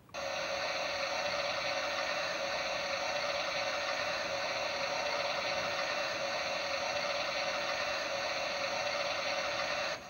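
Toy Miele W1 washing machine running its wash cycle: its small motor and plastic gears turn the sudsy drum with a steady mechanical whir that starts abruptly.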